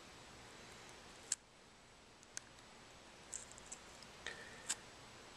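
Faint, scattered clicks and ticks of cracked Samsung Galaxy S3 screen glass being pried off with a razor blade. The sharpest snap comes about a second in, followed by a few smaller ticks.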